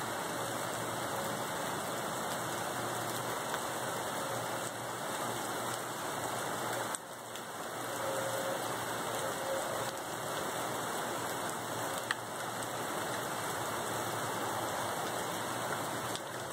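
Steady rain falling on a wet street, an even hiss, with a brief drop in level about seven seconds in and a faint click about twelve seconds in.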